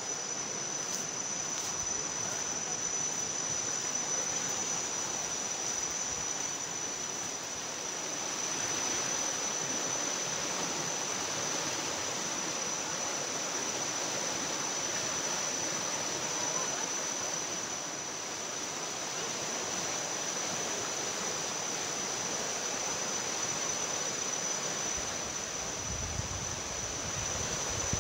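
A muddy, swollen river rushing steadily, an even wash of water noise, with a steady high-pitched whine running over it.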